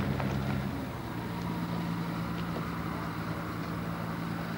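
A motor running with a steady low hum that shifts to a different pitch about a second in.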